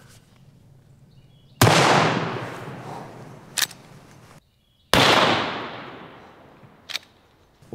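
Rossi R92 lever-action rifle in .357 Magnum, fitted with a muzzle brake, firing a 158-grain jacketed hollow point: two sharp shots about three seconds apart, each ringing out in a long echoing fade. A short, sharp click follows each shot about two seconds later.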